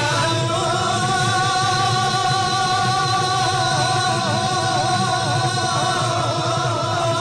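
Bihu music: one long high note with a wavering vibrato, held for about seven seconds over steady low dhol drumming.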